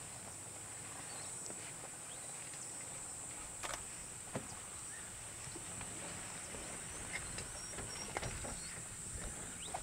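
Steady high-pitched insect chorus, with scattered sharp clicks now and then.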